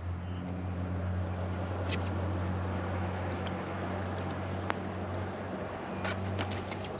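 Bass boat motor running with a steady low hum, with a few light clicks and taps near the end.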